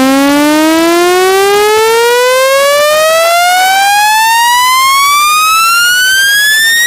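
Electronic test tone rich in overtones, sweeping smoothly and steadily upward in pitch: a speaker-cleaning frequency sweep meant to shake water and dust out of a phone speaker.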